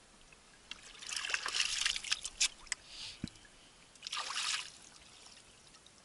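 River water splashing and trickling as hands dip and move in it at the side of a boat, in two spells: a longer one about a second in and a short one about four seconds in.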